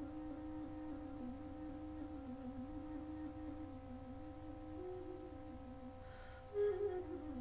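Flute holding a low note and trilling rapidly between two close pitches, the bird-song effect made by flicking the thumb hole open and shut while still blowing. Near the end it jumps briefly to a louder, higher note and slides back down, over steady held tones underneath.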